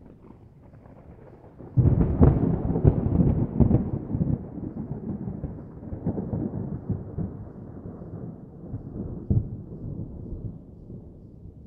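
Thunder: a sudden crack about two seconds in, crackling for a couple of seconds, then a long rolling rumble that slowly fades away.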